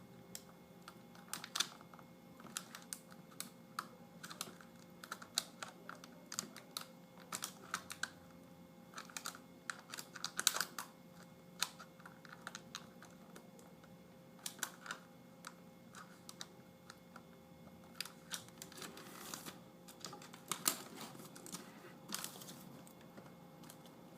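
Irregular light plastic clicks and taps from laptop screen parts being handled and fitted together, scattered throughout, over a faint steady hum.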